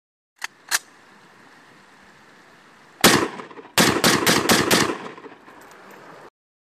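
Two sharp clicks, then over a steady hiss one loud bang about three seconds in and a rapid run of five or six bangs, trailing off into a few faint clicks; the sound starts and stops abruptly.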